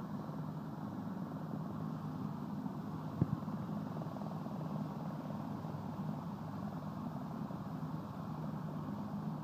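Police helicopter approaching to land, a steady drone of rotor and turbine growing slowly nearer. A brief knock about three seconds in.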